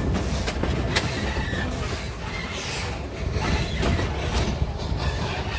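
Narrow-gauge steam train rolling along the track, a steady low rumble with occasional sharp clicks and knocks from the wheels and couplings.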